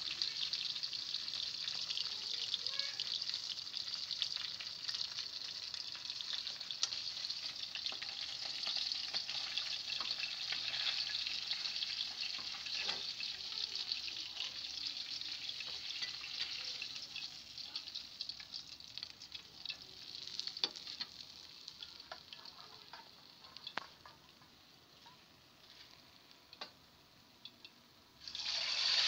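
Whole tilapia crackling and sizzling in hot oil in a wok, with many small pops. The sizzle dies down over the second half as the fish is lifted out onto a plate, with a few light spatula knocks. A loud sizzle starts up again abruptly just before the end.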